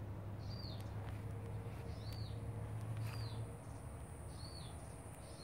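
A bird repeating a short, high, arched chirp about once a second, over a low rumble that fades about three and a half seconds in.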